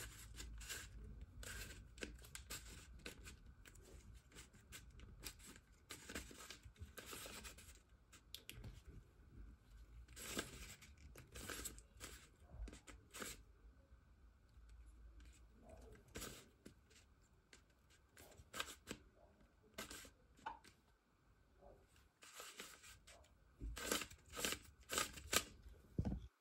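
Faint, irregular clicks and short rustling scrapes as a small folding cube printed with $100-bill images is twisted, unfolded and refolded by hand; a quick run of louder clicks comes near the end.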